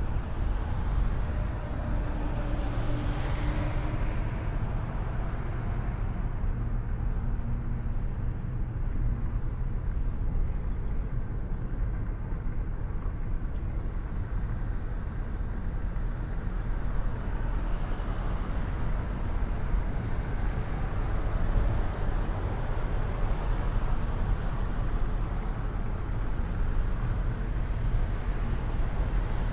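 Steady road and engine rumble heard from inside a moving car. Another vehicle's noise swells briefly about three seconds in and again around eighteen seconds.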